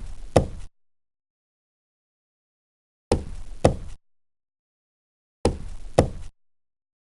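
Knocking on a table in pairs: two sharp knocks about half a second apart, heard three times, each pair cut off short with dead silence between.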